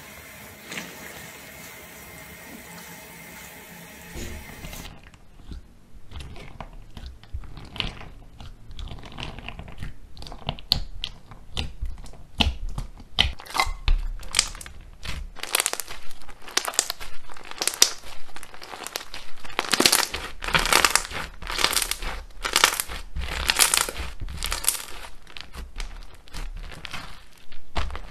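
A tap running into a foamy basin gives a steady hiss for about five seconds. It is followed by thick white slime studded with red bits being pressed and stretched by fingers, making dense, irregular crackles and pops that grow louder and more frequent.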